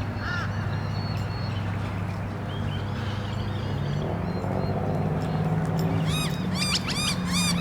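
A steady low hum runs underneath. About six seconds in, a bird starts a fast series of sharp, repeated chirps.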